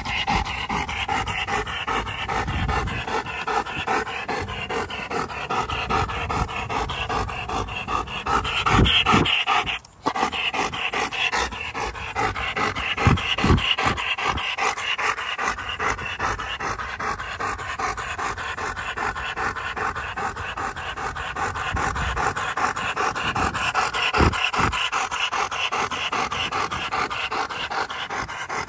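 Black German Shepherd panting heavily and rapidly, close up, with its mouth wide open and tongue hanging out. The fast, even breaths run on steadily, broken for an instant about ten seconds in.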